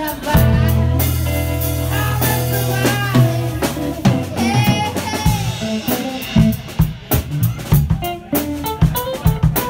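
Live band playing: drum kit with cymbals and electric guitar. A long low note is held with a cymbal wash for the first few seconds, then the drums break into a run of quick hits.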